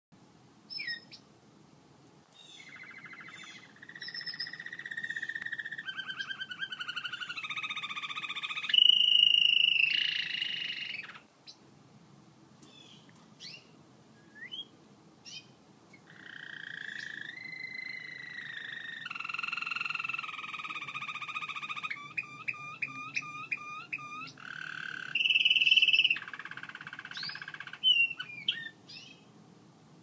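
American Singer canary singing: two long song phrases of rolling trills that step from one pitch to another, the loudest a high trill near the ninth second. Short single chirps fill the pause between the phrases.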